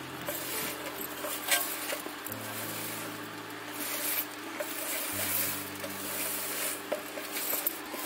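Hand mixing spiced, salted lemon pieces on a steel tray: irregular rubbing and scraping of the fruit against the metal, over faint low sustained tones that shift twice.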